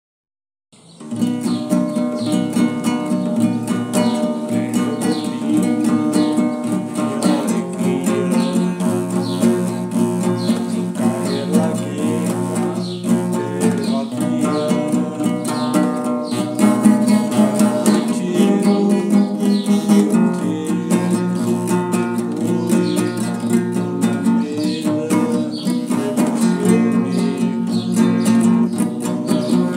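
Acoustic guitar strummed in a steady rhythm of chords, starting about a second in.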